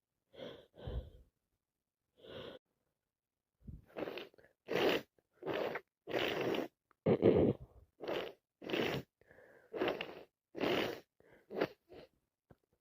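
A woman with a heavy cold in a fit of sneezing and gasping breaths: a few short breaths first, then a fast run of about a dozen loud sneezes and gasps, each under a second apart, the loudest about seven seconds in.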